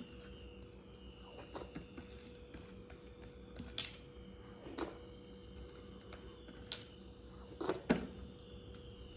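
Eating by hand from a plastic plate, fingers wiping up the last of the food: scattered soft clicks and smacks, the loudest pair near the end, over a faint steady hum.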